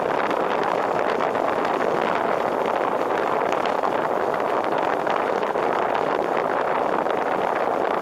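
Steady rushing noise of a car driving on a wet road in the rain, picked up by a camera mounted outside the car, with wind on the microphone and many small ticks.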